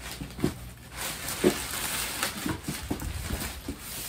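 Paper rustling and crinkling as a cardboard shoe box is opened and its wrapping pulled apart, with a few light knocks from handling the box.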